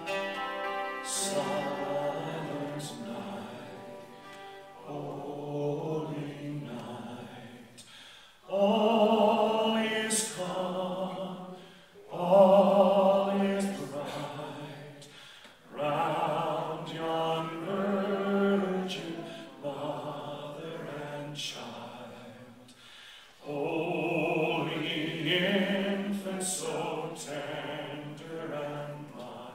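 A man singing a slow song into a microphone, in phrases of long held notes with short breaks between them, accompanied on acoustic guitar.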